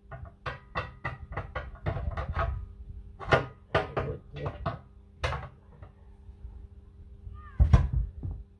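Steel tyre lever knocking and scraping against the steel rim while prying the bead of a tractor rear tyre off or on by hand: a fast run of sharp metallic clicks and knocks, then spaced single knocks, and one louder squeaking scrape near the end.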